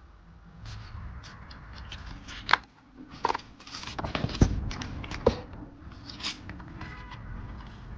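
Hands handling album packaging and photocards: paper and plastic rustling and crinkling, with a string of sharp clicks and taps, the loudest about two and a half and four and a half seconds in, and a brief rapid scratchy rasp near the end.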